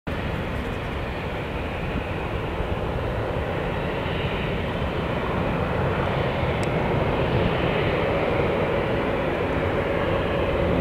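Twin-engine jet airliner's engines at takeoff power as it starts its takeoff roll: a steady jet noise that grows gradually louder.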